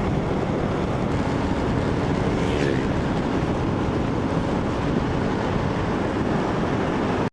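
Yamaha Cygnus X scooter's single-cylinder engine running, with a steady rush of wind noise on the microphone. The sound cuts off abruptly at the end.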